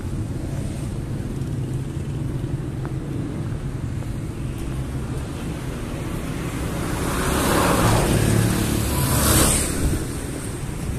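Street traffic: a steady low rumble of road noise, with vehicles passing close by, swelling and fading about seven seconds in and again near the end.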